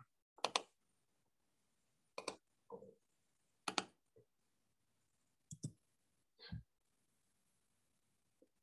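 Faint computer mouse clicks: about four short, sharp clicks a second or two apart, with a couple of softer, duller bumps between them.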